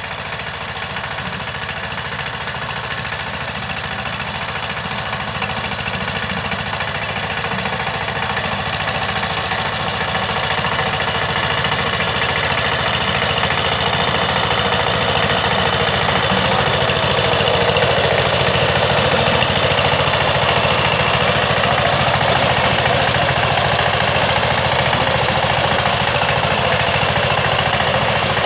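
16 hp walking tractor with a rotavator, its single-cylinder diesel engine running with a steady, rapid knocking. It grows slowly louder over the first half, then holds.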